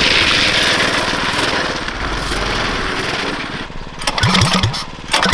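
Tillotson 212 single-cylinder engine on a drift trike running under load with a rushing wind noise. About four seconds in it stumbles and sputters in uneven bursts, the sign of fuel starvation that the rider reports.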